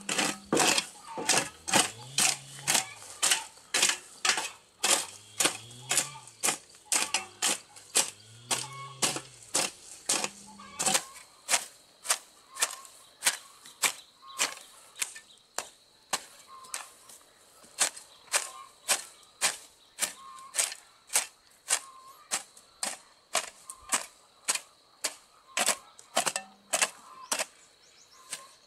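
Repeated sharp strikes in an even rhythm, about two a second, kept up without a break.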